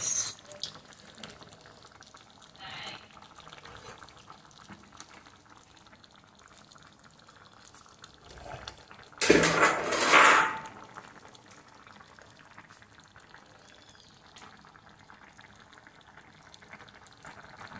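Fish moqueca broth simmering in a wide stainless steel pan, a faint steady bubbling, broken about nine seconds in by a loud burst of noise lasting about a second.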